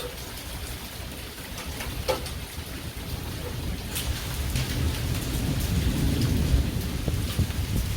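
Steady heavy rain with the odd drop landing sharply close by, and a low roll of thunder that builds from about three seconds in and is loudest a little before the end.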